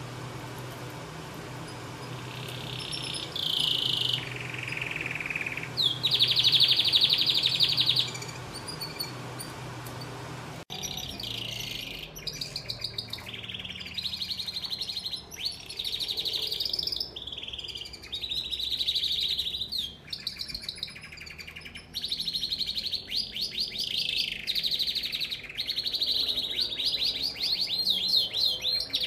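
Male domestic canary singing: phrases of fast rolling trills and rapidly repeated whistled notes with short pauses between them, beginning a few seconds in.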